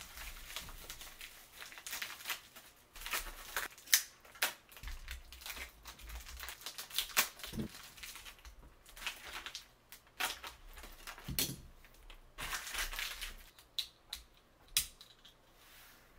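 Thin plastic packaging crinkling, rustling and tearing as a Beyblade X top is unwrapped, with a few sharp clicks of small plastic parts being handled.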